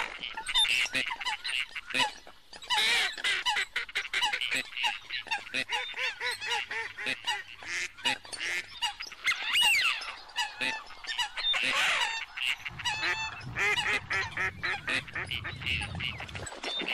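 A mixed flock of waterfowl calling over one another, many short repeated calls overlapping without pause. A low rumble joins about three-quarters of the way through.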